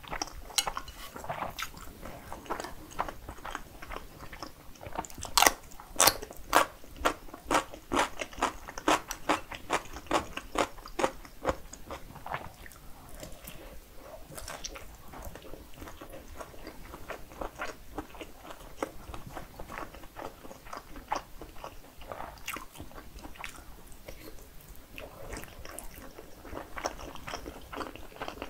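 Close-miked mukbang eating sounds: biting and chewing of cheese-topped fried rice and thick sausages, wet mouth clicks with crunching. A fast run of sharp, loud crunchy clicks comes about five to eleven seconds in; after that the chewing goes softer and sparser.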